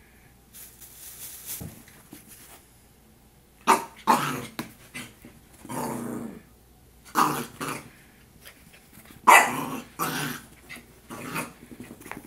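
Yorkshire terrier puppy barking at trash bags it is frightened of: after a faint rustle, a run of short, sharp barks comes in clusters starting a few seconds in, with a few barks held longer.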